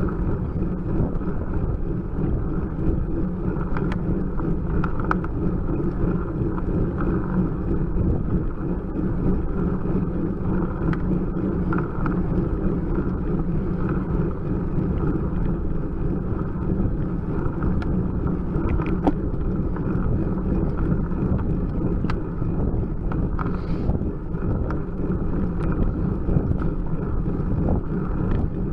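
Steady wind rush and low rumble on the microphone of a bike-mounted camera on a road bicycle climbing slowly, with a few faint clicks.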